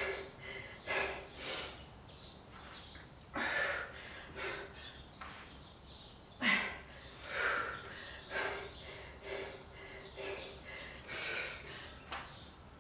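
A woman breathing hard during a dumbbell exercise, with short forceful exhales and sniffs about once a second. Twice the exhale starts with a brief grunt.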